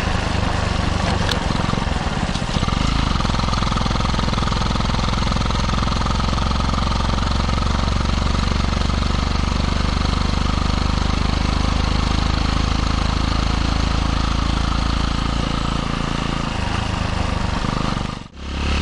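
Kawasaki Eliminator 125's single-cylinder four-stroke engine running under way, picked up by a microphone just behind the muffler outlet, with wind rush over it. Its note shifts about two and a half seconds in and again near the end, and the sound cuts out for a moment just before the end.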